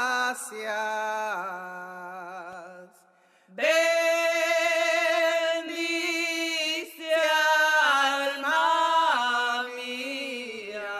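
Women's voices singing slowly without accompaniment: long held notes with a wavering vibrato, breaking off briefly about three seconds in before the singing resumes.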